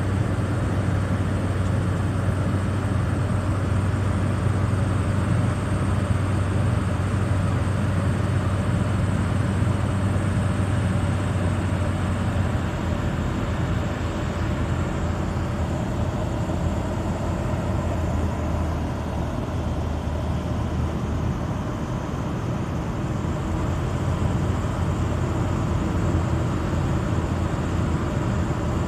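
Evektor light aircraft's piston engine and propeller droning steadily inside the cockpit, with wind noise. The engine note steps down in pitch from about twelve seconds in, as power is reduced on the approach to land.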